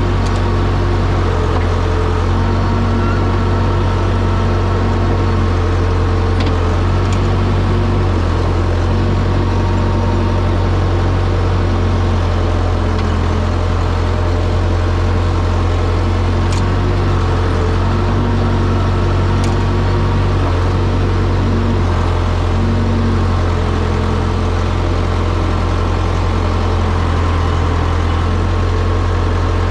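Engine running steadily at a constant speed, a deep even drone with no revving.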